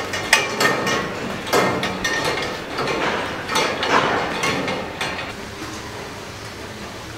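Metal clanks and rattles from a barn's headlock feed barrier as cows eat at it, coming as irregular sharp knocks that thin out after about five seconds.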